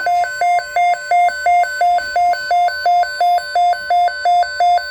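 Weather radio alert alarm going off for a severe thunderstorm watch: a loud electronic tone alternating between a low and a high pitch about three times a second.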